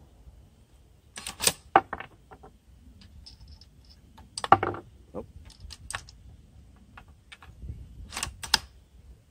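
Bolt of a Savage bolt-action rifle in .243 Win being worked between shots: a series of sharp metallic clicks and clacks, grouped about a second in, around four and a half seconds in, and a close pair near the end.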